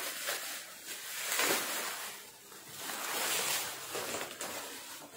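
Plastic bubble wrap rustling and crinkling as it is cut open with scissors and pulled off a cardboard box, coming in uneven swells.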